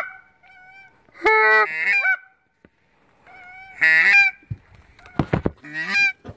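Goose honks: four loud calls, each breaking sharply upward in pitch at the end. Several low knocks and some rustling come a little before the last call.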